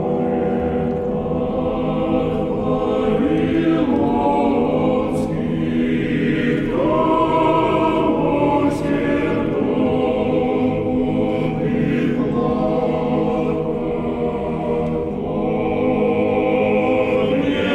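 A choir singing slow, held chords.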